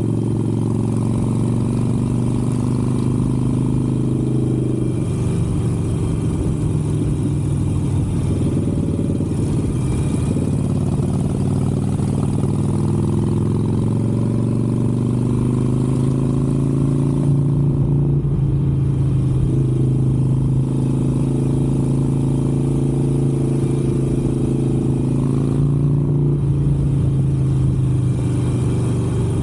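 Harley-Davidson Sportster 883's air-cooled V-twin engine running at cruising speed on the road, heard from on board the bike. The engine note shifts briefly three times, around 5, 18 and 26 seconds in.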